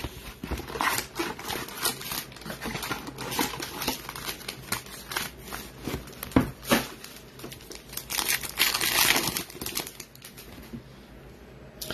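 Packaging of a trading-card Mega box being opened: cardboard and pack wrappers crinkling and tearing in irregular crackles. Then cards are handled in a stack, and the sound thins out near the end.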